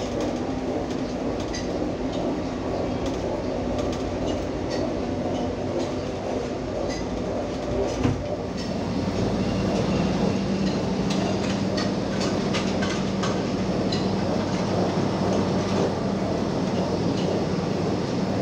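A vehicle running steadily with a rattling ride noise. Its low engine hum steps down in pitch right after a knock about eight seconds in.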